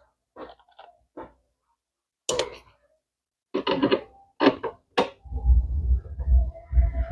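A series of short knocks and clatters, like objects or panels being handled, followed from about five seconds in by an uneven low rumble.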